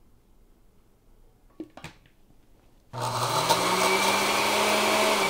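Countertop blender grinding toasted almonds into a coarse meal. A couple of faint clicks come first, then about three seconds in the motor starts with a rising pitch as it spins up and runs steadily and loudly.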